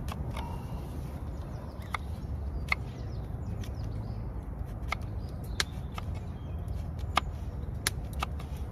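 Irregular sharp clicks and snaps, a dozen or so scattered over several seconds, above a steady low rumble.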